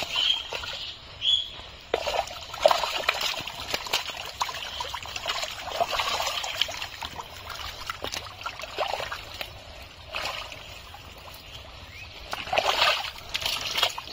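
Hands and legs squelching and splashing through thick wet mud and shallow muddy water in irregular bursts, as fish are groped for in the mud.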